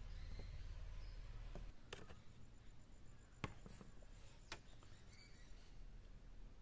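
Faint handling of coconut-shell bowls: three light clicks as the shells are set down and touched while being wiped with a cloth, with faint bird chirps behind.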